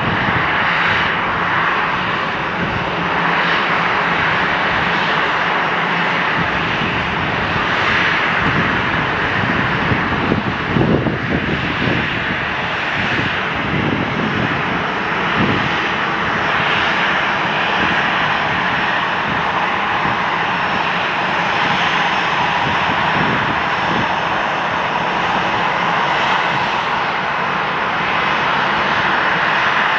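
Airliner engines running, a steady broad rushing noise with low rumbling swells between about eight and sixteen seconds in.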